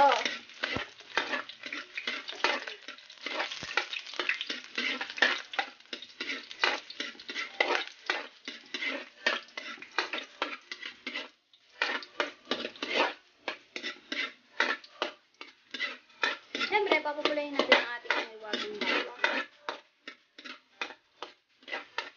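Minced garlic frying in hot cooking oil, stirred and scraped around the pan in many quick, irregular strokes, with a brief pause about halfway through.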